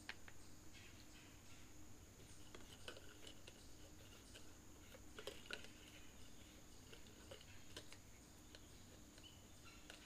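Faint scattered clicks and light scrapes of a flashlight's push-button end cap being screwed onto its body, over a steady high-pitched insect drone.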